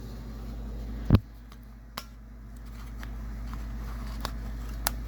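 Handling of a box of old hand tools: one heavy thump about a second in, then a few sharp light clicks as pieces are moved, over a steady low hum.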